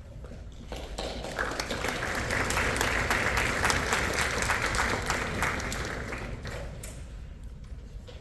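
Audience applauding. It swells up about a second in and dies away over the last couple of seconds.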